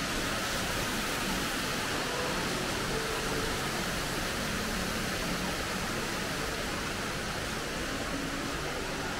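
Steady, even rushing noise of a large store's interior, with faint voices of shoppers mixed in.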